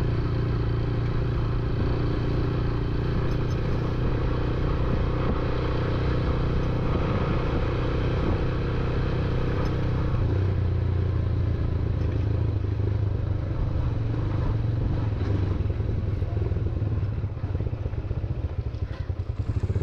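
Motorcycle engine running steadily under way on an unpaved dirt track, a low drone with some rattle from the rough surface; it eases off briefly near the end.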